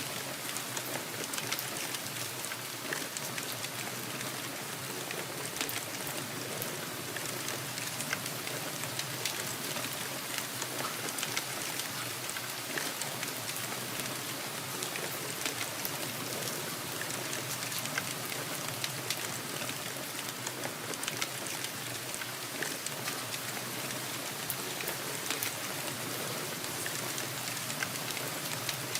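Steady rain: an even hiss of falling rain dotted with many small, sharp drop taps.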